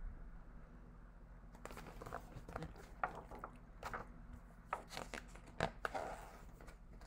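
Faint rustling and crinkling of a picture book's paper pages as the book is handled and a page is turned, in a series of short crackles over a faint steady hum.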